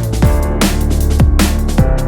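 Electronic dance music with a fast, driving drum beat and deep bass, in a drum and bass style.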